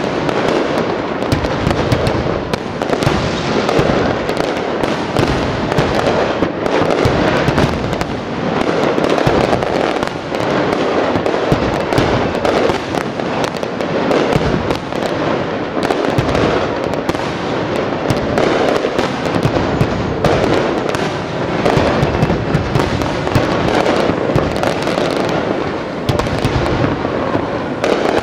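A fireworks display at full barrage: aerial shells bursting in quick, overlapping succession, a continuous mix of booms and crackling with no let-up.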